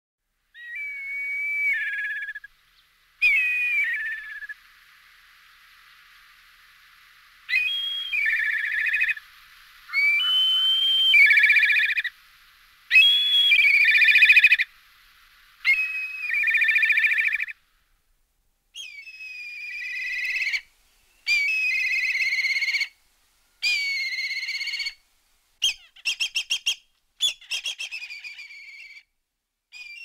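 Black kites calling: a series of high, quavering whistled calls, each one to two seconds long, ending in a quick stutter of short calls.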